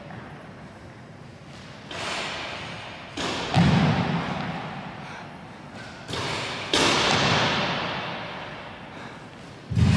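A series of sudden heavy thuds from jump or dunk attempts at a basketball hoop. There are about five of them a second or more apart, each trailing off slowly, with the loudest about a third of the way in and near the end.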